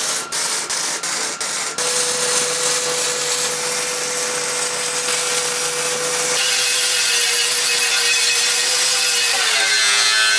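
A MIG welder tacking a steel end cap onto a smoker tank: a few short crackling bursts of tack welds, then a continuous welding crackle. Near the end an angle grinder starts grinding the steel seam.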